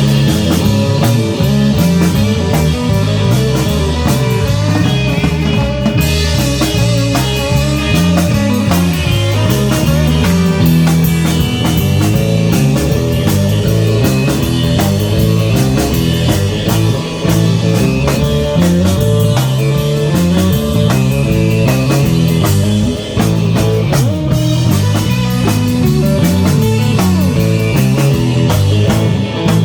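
Live rock band playing an instrumental number, with guitar over a drum kit and moving low bass notes, loud and continuous.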